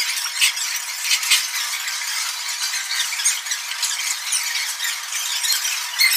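Clatter of dishes and utensils over a steady hiss of background noise, thin-sounding with no low end. Sharp clinks come about half a second in, again just after a second, and near the end, and a faint steady tone runs underneath.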